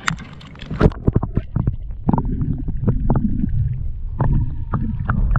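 Water splashing and sloshing as an action camera is plunged beneath the lake surface, then a muffled underwater rumble and gurgle heard through the submerged camera.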